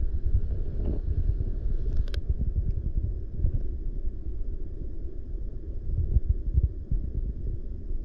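Muffled, fluctuating low rumble of water heard by a camera held underwater, with one sharp click about two seconds in.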